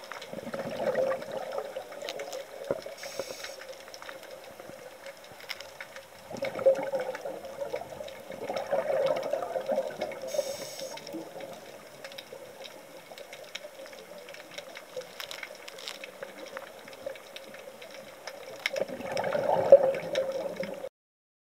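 Scuba diver's exhaled bubbles heard through an underwater camera housing. The bubbling comes in several bursts a few seconds apart, with faint clicks between them, and cuts off suddenly near the end.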